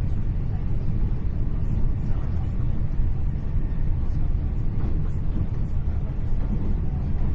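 Steady low rumble of a Hitachi Class 800 Intercity Express Train heard from inside the passenger coach as it runs along the line, with faint light rattles over it.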